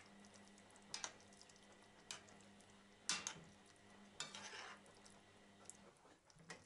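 Metal spoon stirring in a stone-coated frying pan of chicken and vegetables in tomato sauce, clinking against the pan a few times, loudest about three seconds in, with a short rattle of scrapes around four seconds, over a faint steady hum.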